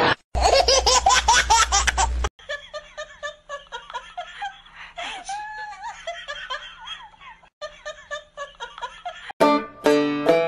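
Rapid, loud laughter, a quick run of repeated pulses lasting about two seconds. A quieter stretch of short calls follows, and music starts near the end.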